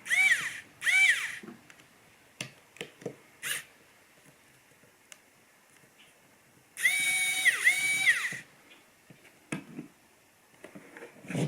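Mini cordless electric screwdriver motor whirring in short bursts while backing out tiny screws: two quick spin-ups near the start, then two longer runs of about a second each a little past the middle. Small handling clicks come between the runs.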